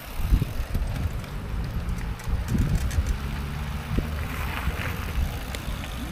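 Wind buffeting the microphone: an uneven low rumble that rises and falls in gusts, with a few faint clicks.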